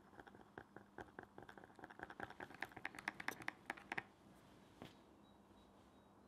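Wooden stick stirring a dark, wet forge-lube paste in a tin can as water thins it, giving a quick run of small clicks and scrapes against the can. The clicks get faster and louder over the first four seconds, then stop, with one more click a little later.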